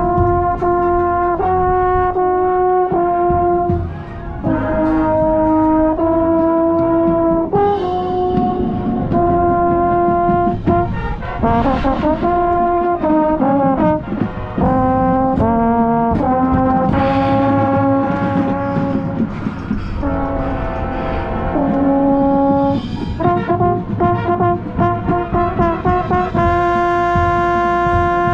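Marching band brass playing, led by a trombone right at the microphone. Held notes change about every second, and around the middle several notes slide up and down.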